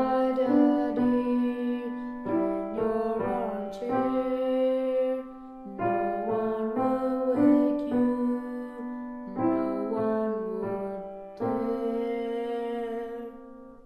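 Solo piano playing a short piece: a run of chords and melody notes, ending on a held chord that fades away near the end.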